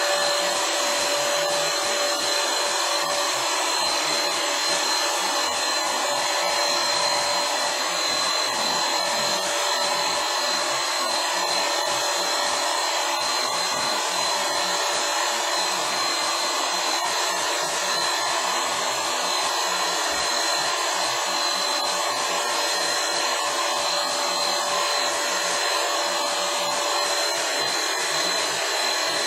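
Handheld paint spray gun and its air supply running steadily: an even blower-like whoosh with a steady high whine and a lower hum on top.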